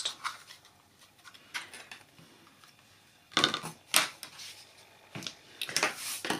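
Craft supplies being handled and cleared off a desk mat: a few faint clicks, then short scrapes and knocks about halfway through and again near the end as the ribbon spool, bookmark and pencil are moved away.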